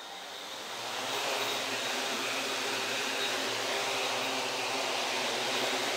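A 3D-printed quadcopter's four electric motors and propellers spin up over about the first second, then run steadily at a constant speed for a hover test.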